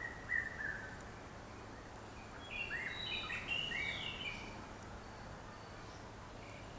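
Several birds calling: a couple of short falling notes at the start, then a burst of overlapping chirps and whistles in the middle. A steady background hiss and low hum run under them.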